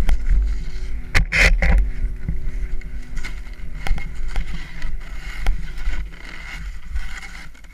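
Snowboard sliding over packed snow, heard through a helmet-mounted GoPro as a low wind-and-motion rumble with scattered knocks and scrapes. A louder scraping rush comes about a second and a half in, and the sound eases off near the end.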